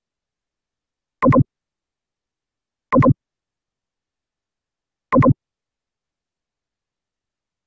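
Mouse-click sound effect from screen-recording software, heard three times about two seconds apart, each a quick double click.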